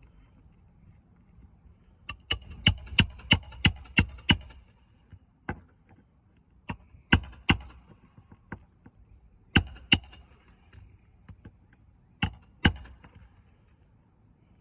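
Hammer driving roofing nails into an asphalt shingle: a quick run of about seven ringing strikes about two seconds in, then a few lighter taps and pairs of strikes.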